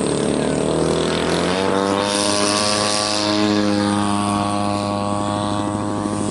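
Radio-controlled model airplane's piston engine and propeller running. About one and a half seconds in, the pitch rises as the throttle opens, then holds a steady high note.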